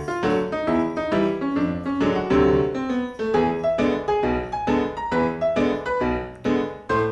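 Background music: a piano-like keyboard playing a quick run of notes, several a second.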